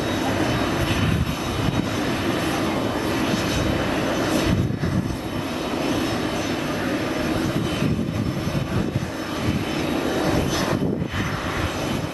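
CH-47J Chinook tandem-rotor helicopter running close by: a loud, steady din of rotor noise and turbine engines, with a faint high whine above it.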